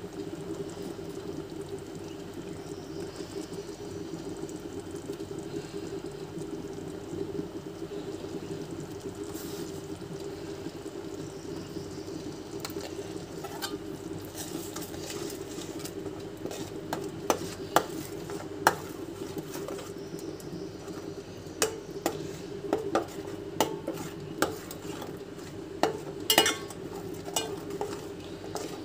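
A metal spoon stirring thick curry gravy in a steel pot, clinking and scraping against the pot in sharp knocks through the second half. A steady hum runs underneath.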